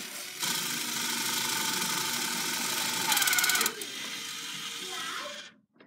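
Mini toy claw machine's small geared motors whirring as the claw moves, with a louder stretch of fast ratcheting clicks about three seconds in; the noise drops after that and stops abruptly just before the end.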